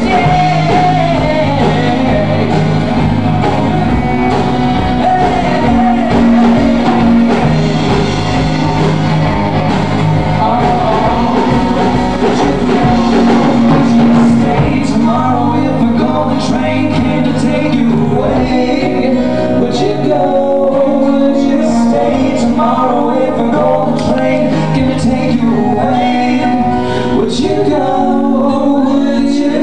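Male voices singing a song live with instrumental accompaniment. From about halfway through, sharp, evenly spaced strikes join in, keeping the beat.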